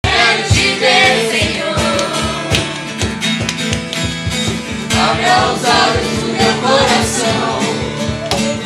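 Acoustic guitar and cajon playing a worship song, the cajon keeping a steady beat of low strikes under the strummed guitar.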